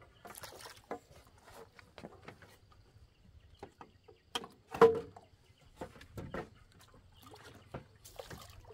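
Irregular splashing and sloshing of water mixed with short knocks, the loudest splash about five seconds in.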